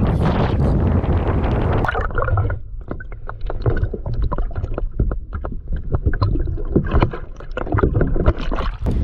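Wind buffeting the microphone; as it eases about two seconds in, water splashes and slaps irregularly against the kayak's hull in choppy water, with a gurgle here and there. The wind noise picks up again at the very end.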